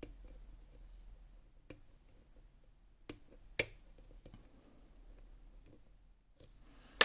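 Small metal clicks and faint scraping of a lock pick working the pins and bar wafers inside a FAB Dynamic lock, with a handful of sharper clicks spaced irregularly and the loudest one near the end.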